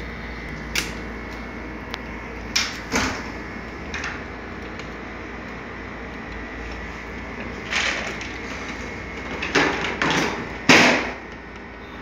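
Black plastic push-button enclosure being handled and pressed onto its wall-mounted box: scattered plastic clicks, knocks and scrapes, several in quick succession and loudest near the end, over a steady background hum.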